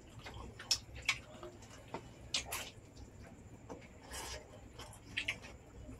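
Close-up eating sounds of cooked oysters being eaten by hand: short wet mouth smacks and slurps at irregular moments, with one longer slurp about four seconds in, over a low steady hum.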